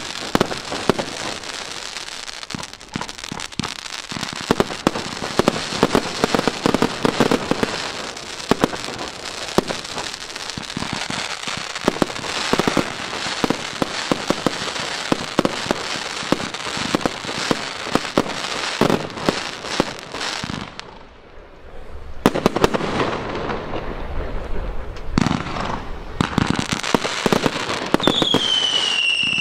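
Aerial fireworks show: a dense, rapid run of bangs and crackling from bursting shells that eases off briefly about two-thirds of the way through, then picks up again. Near the end a whistle falls in pitch over the bangs.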